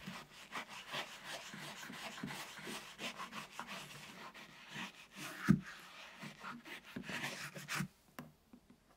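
Brush scrubbing the insole inside a leather trainer: quick, repeated scratchy rubbing strokes, with one sharp knock about halfway through. The scrubbing stops about a second before the end.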